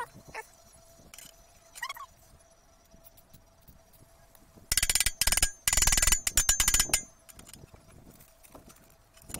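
Steel pliers gripping and twisting a rust-seized nut on an old bicycle part: two bursts of rapid metallic clicking and scraping about five and six seconds in.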